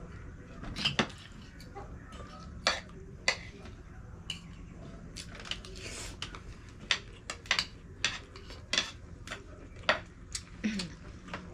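Spoon and fork clinking and tapping against plates and glass bowls during a meal: a couple of dozen short, sharp clinks at irregular intervals, with a low steady hum underneath.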